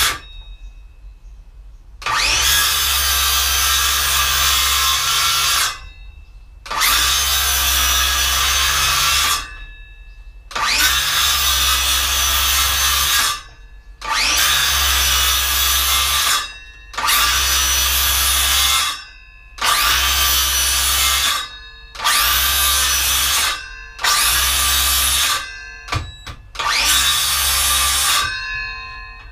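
Handheld electric circular saw started again and again and run through a wooden board, about nine cuts of two to four seconds each with brief pauses between them, the motor winding up at the start of each. A row of close relief cuts across the waste so it can be knocked out with a hammer, in place of a jigsaw cut.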